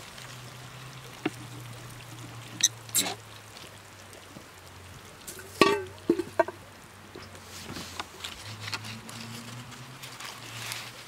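A few sharp knocks and clinks, the loudest about halfway through with a brief ring, over a faint steady hum.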